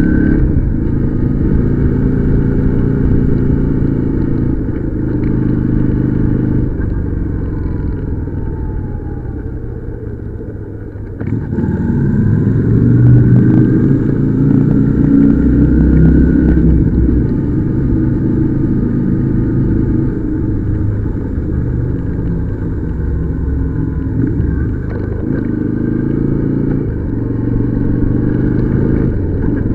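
Motorcycle engine under way, its pitch stepping up and down through the gears. The throttle eases off for a few seconds, then opens up again sharply about eleven seconds in.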